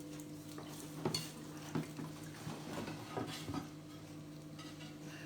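Pieces of an Aynsley bone china dinner service clinking and knocking against each other as they are unpacked from a box, with a handful of sharp clinks between about one and three and a half seconds in.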